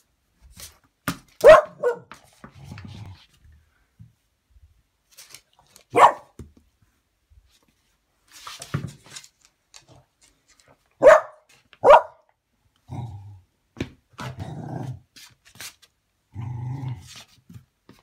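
A dog barks five times in three groups: two barks near the start, one in the middle, then two more. Low growls come between the barks, longest near the end.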